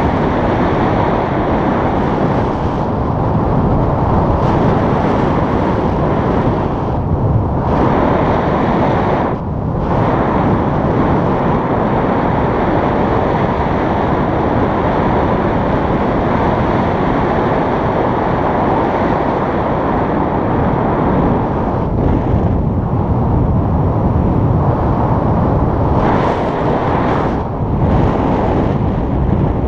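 Wind rushing over the camera microphone from the airflow of a paraglider in flight: a loud, steady rush that eases briefly a few times.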